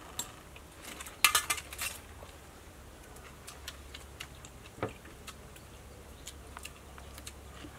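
Tableware being handled: glass bowls, plates and utensils clinking and tapping on a wooden table, with a quick cluster of clatters about a second in and a single sharper clink near five seconds.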